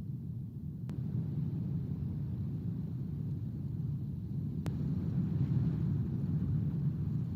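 Wind buffeting the nest camera's outdoor microphone: a steady low rumble that swells slightly about five seconds in, with two faint ticks, one about a second in and one near the middle.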